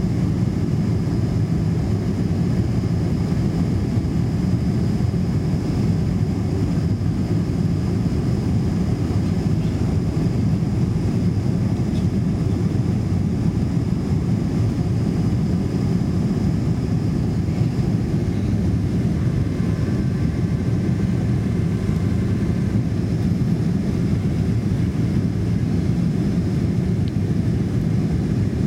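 Boeing 747-400 cabin noise while climbing after takeoff: jet engines and rushing air make a steady, dense low rumble. A faint, steady high tone sits above it.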